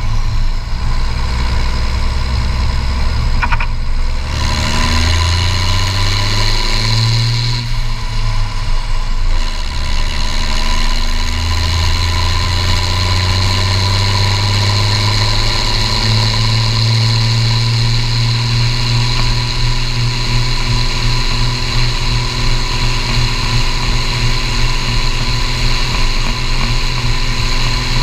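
Case IH 1455 XL tractor's turbocharged six-cylinder diesel running through a straight-pipe exhaust stack, heard close up from the tractor. The engine pitch rises and dips a couple of times in the first ten seconds, then holds steady at road speed, with a steady turbo whistle above it.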